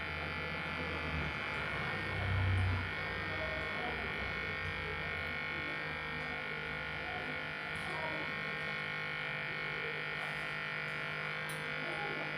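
Small electric motor of a homemade balloon-inflating air pump running steadily with an even buzzing hum, with a brief low bump about two seconds in.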